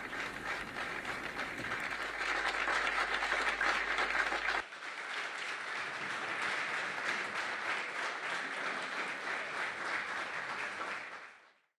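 A crowd applauding, a dense patter of many hands clapping. About halfway through it cuts abruptly to a second stretch of applause, which fades out near the end.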